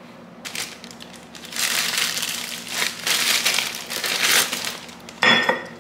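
Thin clear plastic bag crinkling and rustling as an item is pulled out of it. The rustle is loudest through the middle, with a brief louder burst near the end.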